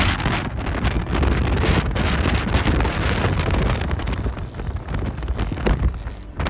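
Wind buffeting the microphone: an uneven rumble and hiss that drops away briefly near the end.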